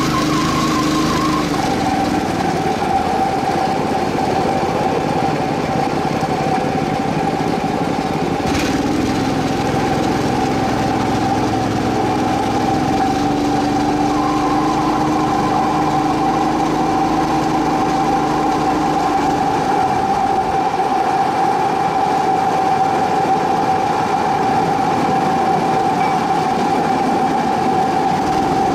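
Motorized aluminium track-maintenance cart running steadily along the rails, heard from on board: an even motor note with the rolling of its wheels. A single short click sounds about nine seconds in.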